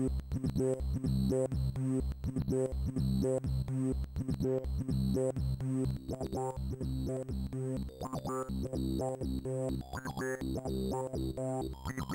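Electronic synthesizer music from an Amiga 1200 demo intro's soundtrack: a steady pulsing beat over bass and keyboard-like chords, with higher melodic notes joining about eight seconds in.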